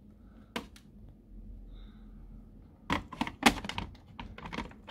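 Plastic clicks and knocks from the handset of an R2-D2 novelty telephone being handled in its cradle: one click about half a second in, then a quick run of clicks and knocks near the end.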